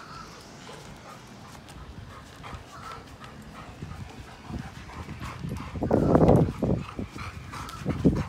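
Two black Labradors tugging a rope toy between them: claws and paws clattering and scuffing on wooden deck boards, with a louder rough burst from the dogs about six seconds in and again near the end.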